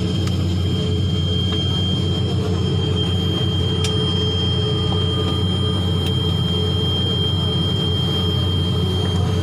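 Airliner cabin noise in flight: the engines' steady drone, with a thin, steady high whine over it.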